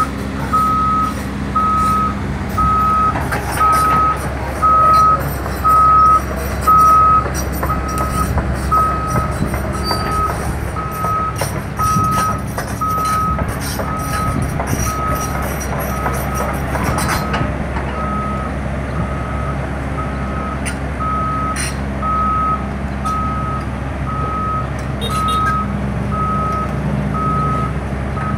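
Heavy-machinery backup alarm beeping at one steady pitch, a little more than once a second, louder for the first several seconds, over a diesel engine running.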